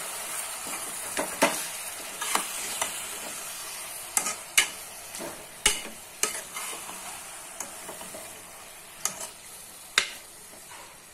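Raw mutton boti (tripe and intestines) sizzling in onion-tomato masala in a pressure cooker as it is stirred, with a metal spoon scraping and knocking against the pot now and then. The sizzle slowly dies down.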